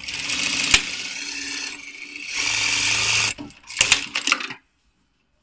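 Direct-drive industrial lockstitch sewing machine stitching at speed in two runs with a short break between them, then two sharp clicks before it stops.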